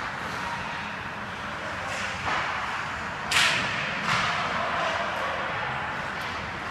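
Ice hockey play: skates scraping on the ice with scattered stick clacks, and one sharp puck impact about three and a half seconds in, the loudest sound.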